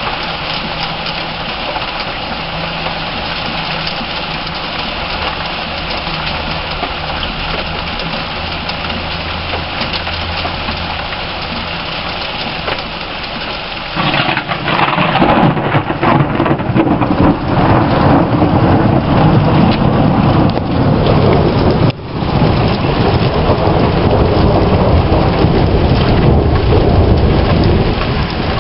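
Heavy rain falling steadily. About halfway through, a loud rolling rumble of thunder sets in suddenly and carries on to near the end, with a brief break partway.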